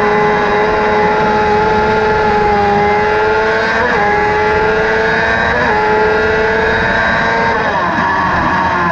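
Crosskart's motorcycle-derived engine running hard at high revs under load, heard from the cockpit. The note holds nearly steady, breaks briefly twice in the middle, then falls and wavers near the end as the revs drop.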